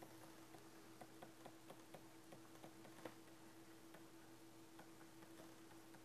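Near silence: a steady low hum of room tone, with faint quick ticking about four times a second.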